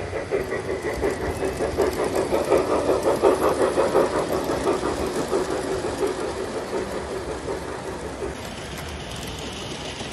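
G-scale model train running past on its track: a rapid, even rhythmic clicking over a steady hum, growing louder to about three or four seconds in, then fading.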